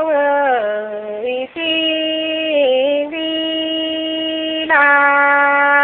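A woman singing a Nùng folk song unaccompanied, holding long notes and sliding in pitch between them, with short breaths between phrases.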